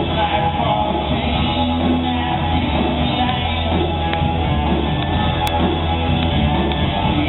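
A live rock band playing a song, with electric guitar, drums and keyboard, heard loud and continuous from the audience.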